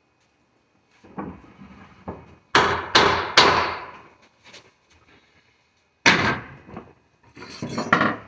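Wooden knocks and bangs as a door slab is struck with a wooden board to seat it in its frame. There are light knocks at first, then three loud bangs in quick succession that ring out, another bang around six seconds in, and a rattling cluster of knocks near the end.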